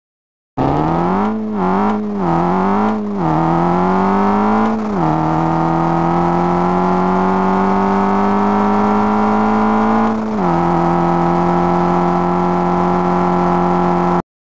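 Car engine accelerating hard: three quick rises and dips in pitch over the first three seconds, then slow climbs in pitch broken by two sudden drops, like upshifts, about five and ten seconds in. It starts and cuts off abruptly.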